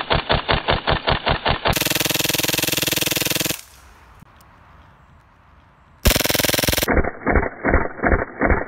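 Full-auto fire from an HPA-converted airsoft G18C: a rapid, even string of shots, about nine a second, stops about two seconds in and gives way to a steady hiss. After a quieter gap comes a sudden loud blast and then a slower string of shots near the end. Both strings of shots sound muffled, with their highs cut off.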